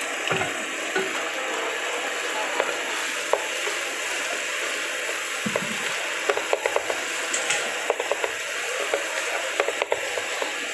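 Fried rice with beef and cabbage sizzling in a hot nonstick pan, with a spatula scraping and tapping against the pan as the rice is stirred; the clicks and scrapes come more often from about halfway through.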